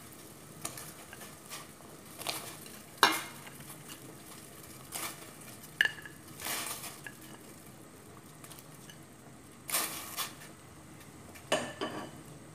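Pieces of raw pork bone dropped by hand from a plate into a stainless-steel pot of water, with short splashes and clinks of the plate against the pot, about eight at irregular intervals; the loudest comes about three seconds in.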